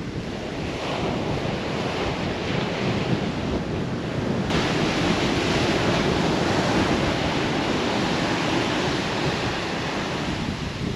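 Ocean surf breaking and washing on a beach, with wind buffeting the microphone; the rush grows brighter and louder about four and a half seconds in.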